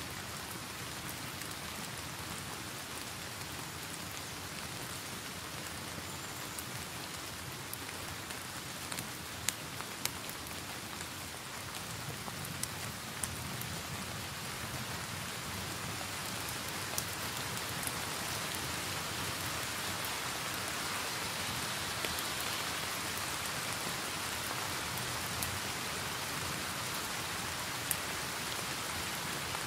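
Steady rain mixed with a crackling wood fire, with scattered sharp pops; it grows slightly louder about halfway through.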